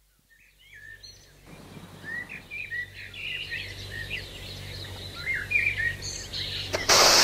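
Dawn birdsong: many short rising chirps and whistles from several birds over a low steady hum, coming in after a moment of silence and slowly growing louder. Near the end a loud rushing noise cuts in.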